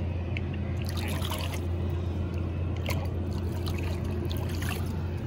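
Shallow river water trickling and splashing in small bursts as a flathead catfish is released and swims off, over a steady low hum.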